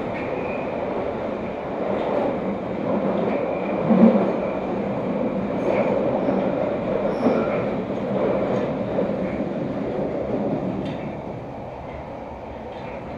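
London Underground 1972 tube stock train running through a tunnel, heard from inside the carriage: continuous running noise of wheels on rail with faint high squeals and a sharp knock about four seconds in. The noise eases off near the end.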